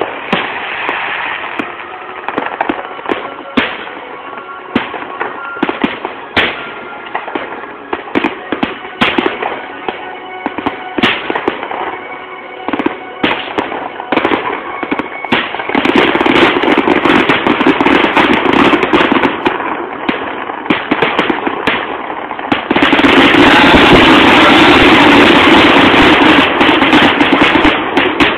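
Aerial fireworks show: a steady run of booming bursts and crackling, thickening into a dense barrage about halfway through and building to a loud, continuous barrage in the last five seconds.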